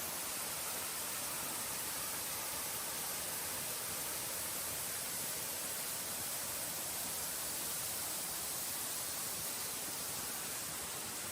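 Steady rushing hiss of a 63-metre waterfall pouring into its plunge pool, even and unbroken throughout.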